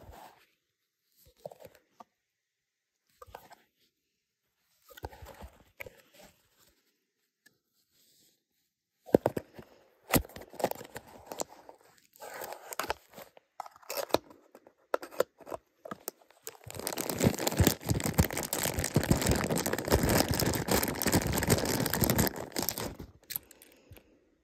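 A small Tomica cardboard toy-car box being opened by hand: scattered taps and scrapes and the end flap being tugged open, then a long stretch of continuous tearing and crinkling of the packaging in the second half, the loudest part, which stops shortly before the end.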